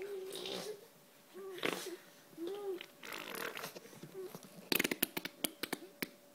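A baby with her mouth pressed against an adult's bare forearm makes short rising-and-falling grunts and wet sputtering mouth sounds on the skin. A quick run of smacking clicks follows about three-quarters of the way through.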